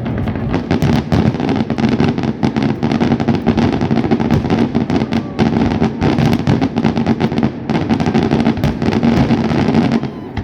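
Fireworks going off in a rapid, unbroken barrage of bangs and crackles, easing off just before the end.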